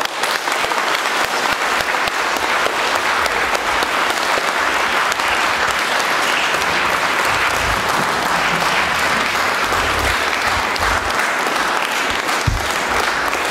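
Congregation applauding in a church: many people clapping together, a dense, steady clapping that breaks out all at once.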